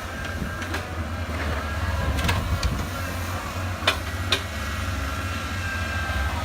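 Heavy diesel engine running steadily under load, with several sharp knocks over the top.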